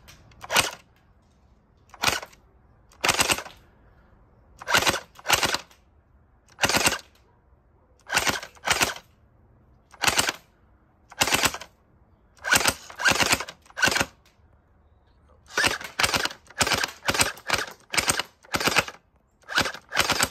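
Gel Blaster Starfire XL electric gel-ball blaster firing on full auto in short rattling bursts, each lasting a fraction of a second, about two dozen in all. The pauses between bursts grow shorter over the last few seconds.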